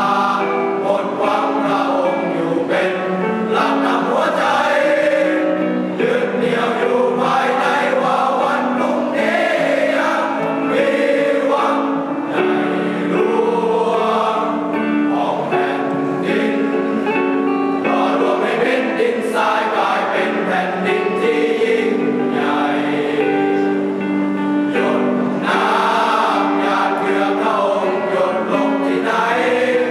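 Music with a choir singing slow, held chords.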